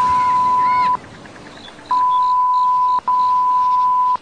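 A steady, single-pitched beep tone, of the kind edited in to bleep out speech, sounding three times: about a second at the start, then two longer beeps back to back from about two seconds in, split by a very short gap.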